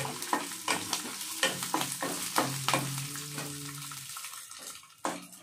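A utensil stirring food in a frying pan: many quick clicks and scrapes against the pan over a steady sizzle.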